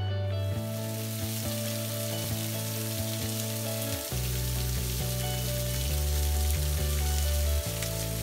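Thin streams of water falling off a rock ledge and spattering onto wet rocks, a steady hiss. Background music with held bass notes plays under it.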